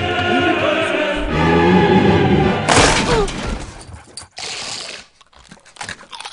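Music with singing, then about three seconds in a sudden loud crash of a glass door shattering.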